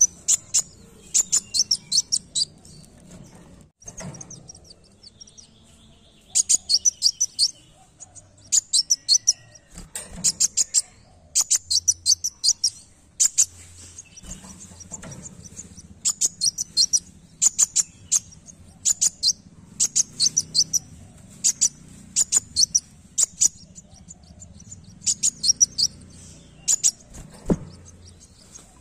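Kolibri wulung sunbird singing: bursts of rapid, high, stuttering chirps, each lasting well under a second and repeated every second or two.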